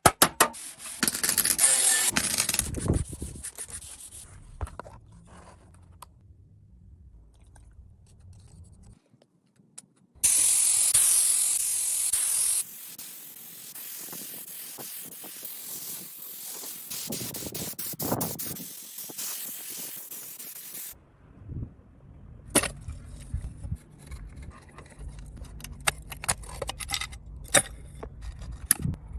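Restoration work on motorcycle parts: scraping and rubbing, with a loud spraying hiss about ten seconds in that lasts a couple of seconds and then carries on more quietly.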